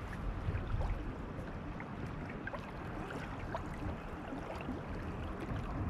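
Homemade 15 cm wing-bait (crawler-type) topwater lure being reeled across choppy water, making faint scattered 'poko poko' plops under wind and lapping waves.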